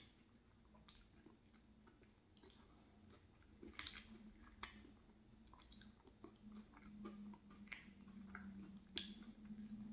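Quiet, soft chewing and mouth sounds of someone eating a spoonable applesauce and crumbled granola-bar dessert, with a few sharp clicks of a spoon against a glass bowl scattered through.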